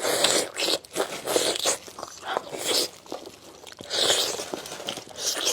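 Close-miked eating: a person biting and chewing food with a crunch, in irregular bursts.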